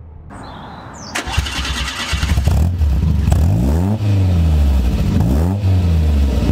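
Peugeot 205's 1.6 XU5 four-cylinder engine on four individual motorbike carburettors, heard at its sporty aftermarket exhaust tailpipe. It is loud and noisy, with a sudden rise in noise about a second in, then the revs rising and falling back a couple of times.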